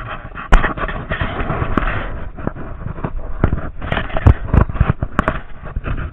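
A rapid, irregular series of sharp cracks and knocks over a rough scraping noise. The loudest crack comes about half a second in, with a cluster of heavy knocks around four to five seconds.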